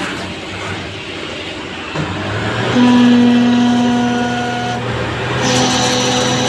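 CNC lathe running an automatic machining cycle, its chuck spinning and the turret tool cutting a metal workpiece. A steady machine hum comes in about two seconds in. It is joined by a loud steady whine that stops near five seconds, and a second, higher-edged whine sets in shortly after.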